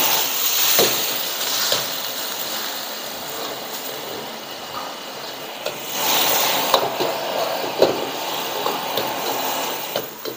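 Yellow noodles and vegetables sizzling in a hot wok after a splash of water, with a metal ladle scraping and knocking against the wok as they are tossed. The sizzle is loudest at the start, eases off, and swells again about six seconds in.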